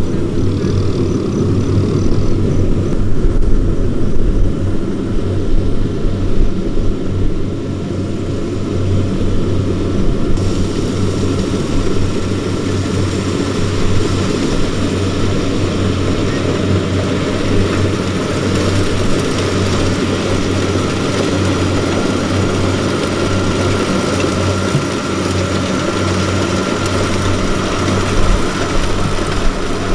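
Diesel engine of rice-harvesting farm machinery running steadily under load, with a constant low hum and a faint steady whine; a rushing noise grows louder about ten seconds in.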